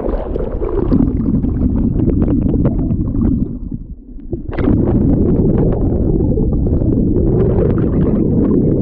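Muffled churning of waterfall water heard through a submerged camera, with many small crackles of bubbles; it dips briefly about four seconds in.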